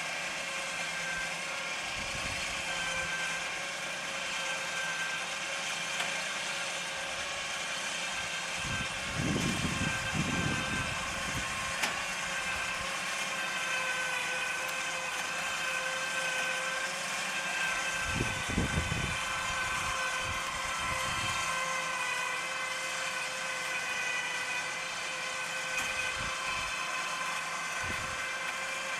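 A truck engine running steadily with a steady whine over it, broken twice by short low rumbles.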